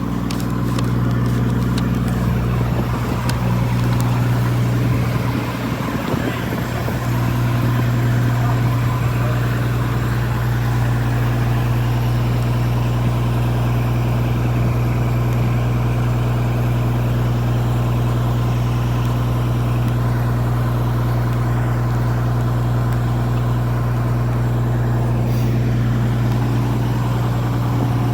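Fire engine idling, a steady low drone.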